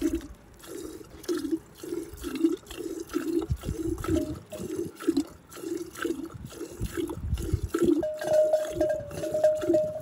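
Cow being milked by hand into a pail: rhythmic squirts of milk splashing into the milk already in the pail, about two to three a second. A steady high tone joins in about eight seconds in.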